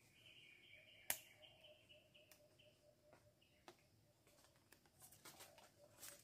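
Quiet forest background with a bird twittering faintly. A single sharp knock comes about a second in, and a run of light clicks and rustles comes near the end as a machete works at the plant stems.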